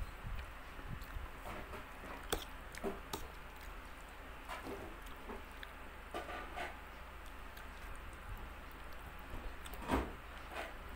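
Eating sounds: noodles being chewed, with scattered clicks of a fork against the plate, the sharpest about two seconds in and the loudest near the end.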